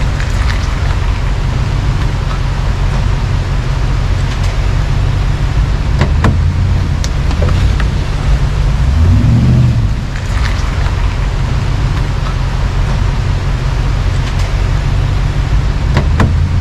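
Pickup truck engine running with a low, steady rumble while crawling along a rough trail. It revs up briefly about nine seconds in, then settles back. A few sharp knocks and rattles come from the truck bouncing over the trail.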